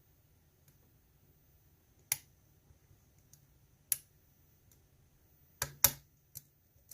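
Sharp, isolated metallic clicks from a lock pick working the pin stack of a GEGE euro cylinder, each click ringing briefly, with a close pair near the end that is the loudest.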